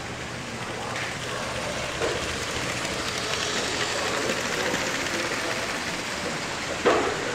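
Steady background noise of a busy exhibition hall, with a single sharp knock near the end.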